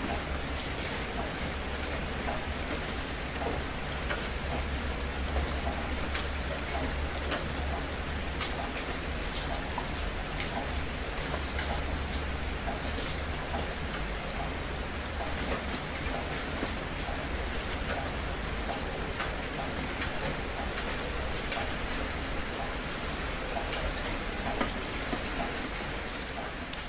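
Steady rain falling, with many separate drops ticking sharply over a dense hiss and a low rumble underneath that eases about halfway through.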